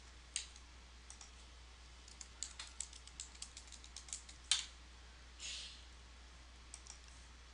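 Faint computer keyboard typing: scattered key clicks, thickest between about two and four and a half seconds in, with a short soft rustle about five and a half seconds in.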